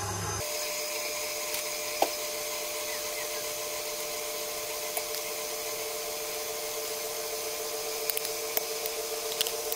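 KitchenAid Artisan stand mixer running steadily, its motor and gears whirring as the beater turns dough and flour in the steel bowl, with a few faint ticks.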